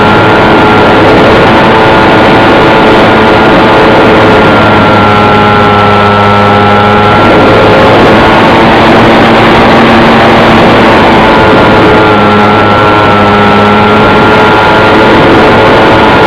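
A small engine running steadily and loud, close to the microphone, its pitch shifting slightly a couple of times.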